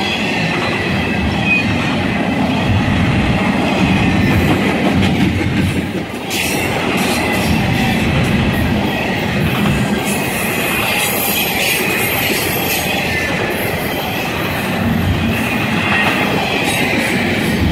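Double-stack intermodal freight train's well cars rolling past close by: steel wheels on rail give a loud, steady rumble and clatter. A faint high wheel squeal comes and goes.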